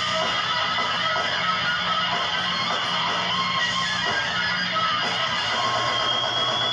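Hair-metal-style rock music led by strummed electric guitars, playing steadily at an even level.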